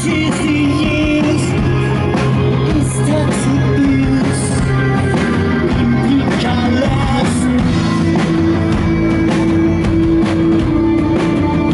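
Live rock band playing loudly, with a singer's voice over electric guitar and drums, heard from the audience.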